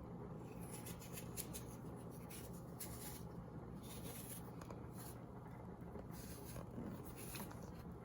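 Faint, irregular scraping and rubbing of a kitchen knife working on apples, short strokes coming unevenly.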